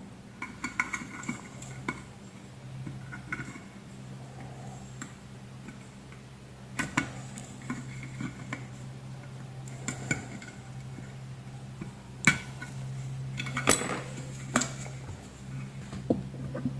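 Scattered clicks and clinks of tools and small metal and plastic parts being handled while an electric kettle's base is taken apart, with a few sharper knocks late on, over a steady low hum.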